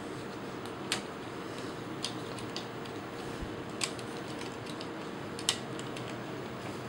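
Hard plastic toy parts clicking and tapping as a launcher accessory's handle is fitted into an action figure's hand: scattered small clicks, four of them sharper, over a steady background hiss.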